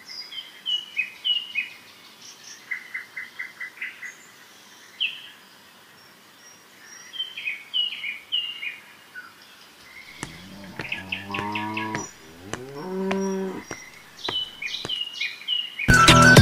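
Small birds chirping in short repeated calls, then a cow mooing, a low drawn-out call about ten seconds in, followed by more chirping.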